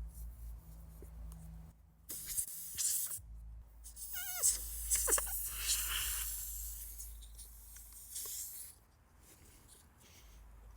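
Tire plug insertion tool being forced into a puncture in the tire tread: a few seconds of scraping, rubbing and hissy noise in uneven pushes, with a short wavering squeak about four seconds in.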